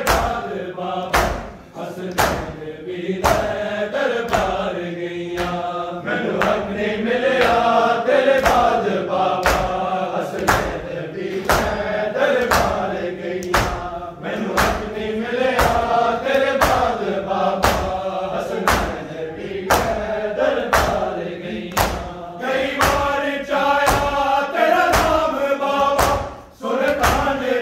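A group of men chanting a Punjabi noha in unison over a steady rhythm of open-hand slaps on bare chests (matam), about one and a half slaps a second.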